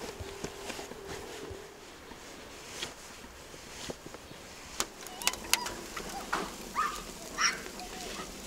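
Soft rasping strokes of cheese rubbed on a metal box grater, then a wood fire crackling with sharp snaps, which are the loudest sounds, about five seconds in. Birds call in the background.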